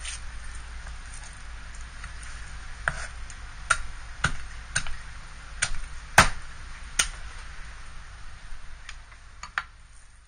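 Kitchen knife knocking against a white cutting board while a kinmedai fillet is cut, a string of sharp knocks, about seven in four seconds, the loudest about six seconds in, with a few fainter ones near the end. A steady low hum runs underneath.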